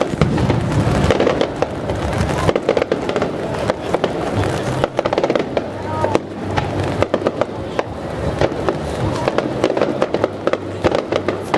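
Aerial fireworks shells bursting overhead, with dense rapid crackling pops throughout.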